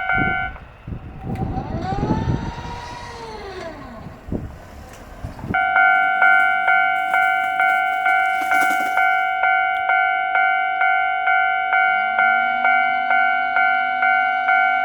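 Japanese railroad crossing alarm ringing its electronic kan-kan at about two strokes a second. It breaks off abruptly just after the start, giving way to an electric train running past with a rumble and a motor whine that rises and falls. About a third of the way in the crossing alarm starts again abruptly and rings steadily.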